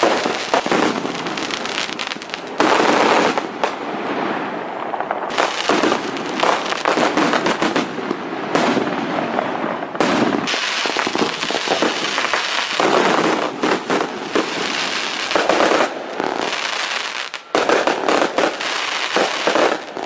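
Fireworks going off in a continuous barrage of rapid cracks and bangs, swelling in louder surges with a few brief lulls.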